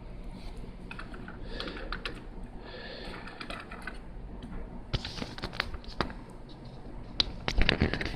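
Small plastic Lego pieces being handled and fitted, making light scattered clicks and taps with brief rustling between them; the clicks come sharper and more often in the last three seconds.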